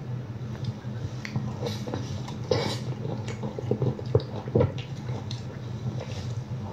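A person drinking from a plastic cup, with gulps, small wet mouth sounds and clicks scattered through, over a steady low hum.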